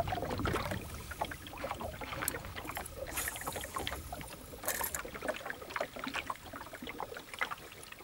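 Water lapping and slapping against the hull of a small boat in irregular splashy ticks, with two short louder rushes of hiss about three and five seconds in.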